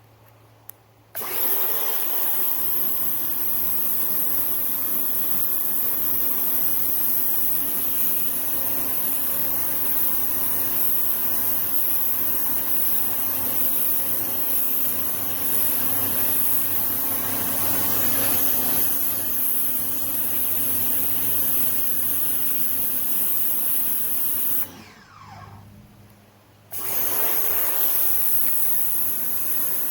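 Electric pressure washer (Ryobi 1600 PSI) starting up and running steadily, its motor and pump humming under the hiss of the high-pressure spray. About 25 seconds in it cuts off and winds down, then starts again a couple of seconds later, as the motor stops and restarts with the spray trigger.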